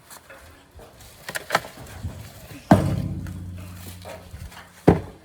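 A few light clicks, then a loud thump. A low ringing hum follows the thump and dies away over about two seconds, and another sharp knock comes near the end.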